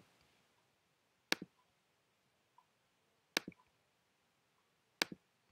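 Computer mouse button clicking three times, about two seconds apart. Each click is a sharp press followed at once by a softer release.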